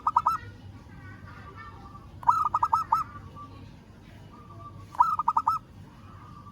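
Local zebra dove cooing: a phrase of four or five quick, looping notes, repeated about every two and a half seconds. This is the call used to challenge a rival male.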